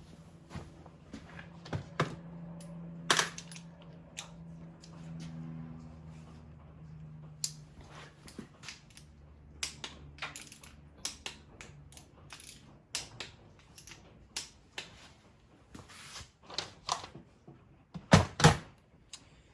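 Metal tools and engine parts clinking and knocking as they are handled, a scatter of irregular clicks and taps, with two loud knocks close together near the end. A faint low hum runs under the first half.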